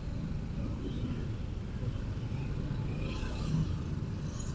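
Motor scooter engines running at a crawl in slow traffic, a steady low rumble heard from the rider's own moving scooter.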